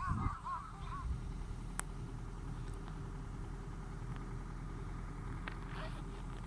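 Birds in a flock calling over one another, fading out about a second in, then the steady low hum of a vehicle engine running.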